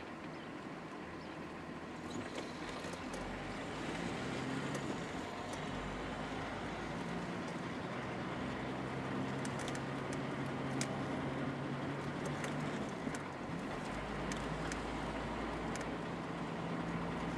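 Car engine hum and tyre road noise heard inside a moving car, steady with slow small shifts in engine pitch and a few light clicks.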